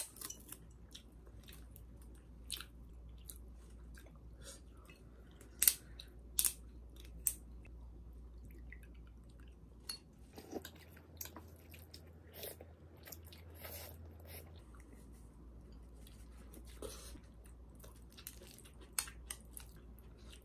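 Close-up eating: chewing with scattered sharp clicks and crunchy bites of food, the loudest a few about six seconds in and again near the end.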